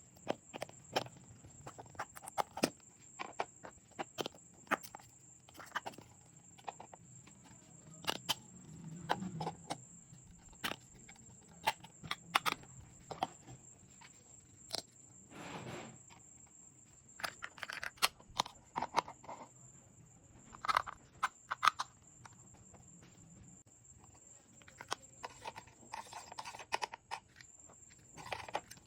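Small plastic toy kitchen pieces being handled and unpacked: irregular sharp clicks and taps with a few brief scraping rustles, over a faint steady high-pitched whine.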